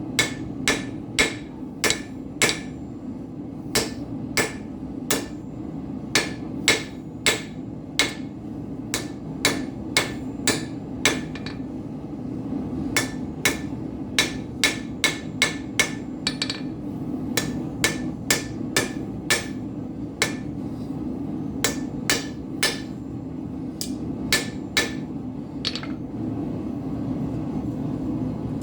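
Hand hammer blows on hot mild steel at the anvil, about two ringing strikes a second in runs separated by short pauses, stopping a couple of seconds before the end. A steady noise from the running forge lies underneath.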